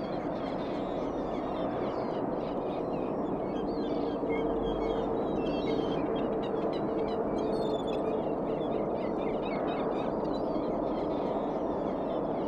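Outdoor ambience: many short bird calls over a steady hiss, with a held call-like tone about halfway through.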